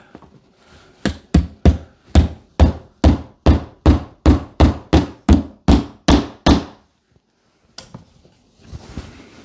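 Hammer tapping a metal molly expansion plug into a drilled hole in the wall: a steady run of sharp blows, about three a second, that stops after some five and a half seconds.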